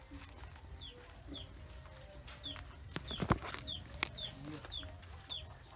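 Chickens clucking around the coop, with a short high peep falling in pitch repeated about every half second. A few sharp knocks land in the middle, the loudest a little after three seconds in.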